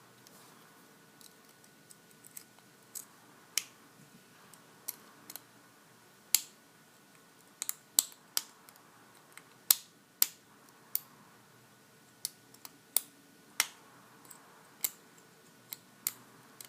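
Light metallic clicks and taps of a lock pick working the spool pins inside a Master Lock 410 lockout padlock's core under light tension, coming irregularly, a few every second or two.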